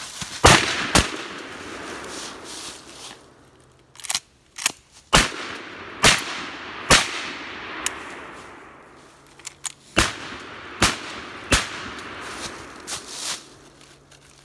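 Shotgun blasts from two hunters firing at running deer: about eight shots over some twelve seconds, the first the loudest, each trailing off in an echo. The last three come in a quick run under a second apart.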